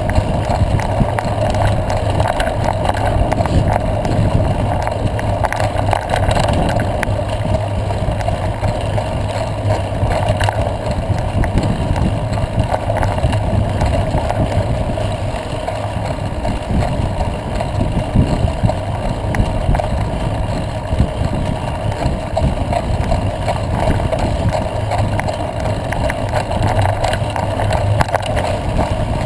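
Steady rush of wind on a bike-mounted action camera's microphone, with the rumble of mountain-bike tyres rolling over a dirt road.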